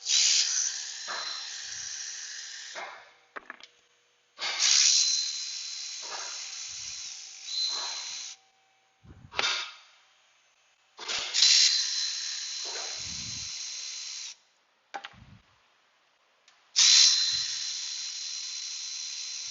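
Cordless battery ratchet running in four bursts of about three seconds each, spinning out the 8mm transmission pan bolts with a high whine and hiss, each burst starting loud and easing off.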